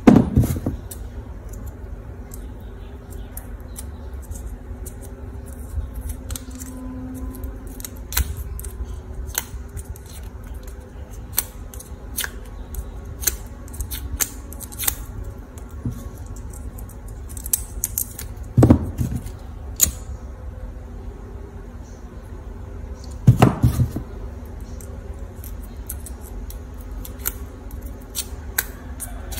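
Small clicks and scrapes of a plastic drinking-straw petal being pressed and curled with a thin flat metal tool. A few louder knocks against the tabletop: one at the start, two more later.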